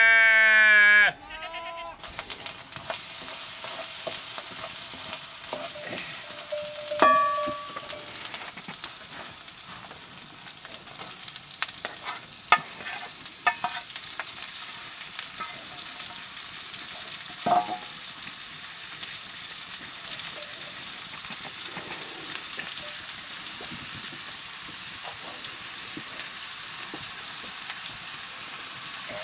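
A sheep bleats loudly once at the start. Then mushrooms fry in a pan over a wood fire: a steady sizzle with scattered clinks and scrapes of the metal plate and utensils against the pan.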